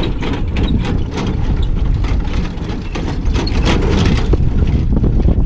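Horse-drawn driving carriage on the move: a steady low rumble of the wheels rolling on the track, with irregular rattles and clicks from the carriage.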